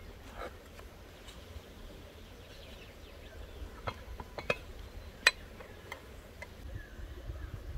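A metal utensil clicking against a ceramic plate as a slice of cherry tart is served onto it: three short sharp clinks in a little over a second, the last the loudest.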